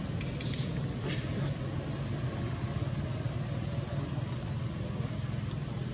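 Steady low engine hum, like a motor idling, with a few faint clicks in the first second and a half.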